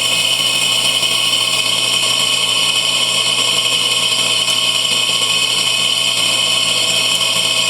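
Washing machine running with a loud, steady electric hum and whine, the machine energised while it fails to spin. The technician blames the fault on a broken wire in the motor harness or a control board defect.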